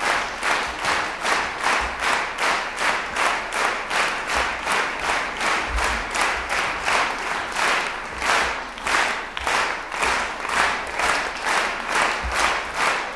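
Concert hall audience clapping in unison, a steady rhythmic applause of about two claps a second.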